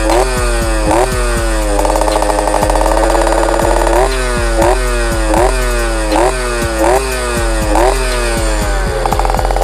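Yamaha Alfa motorcycle's two-stroke single-cylinder engine being blipped: quick rev-ups that jump sharply and fall back, about two a second. About two seconds in it is held at a steady higher rev for a couple of seconds, then blipped again, and held steady once more near the end.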